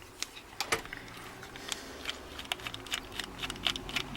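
Irregular small clicks and taps of a screwdriver working the screw out of a padlock's die-cast cover.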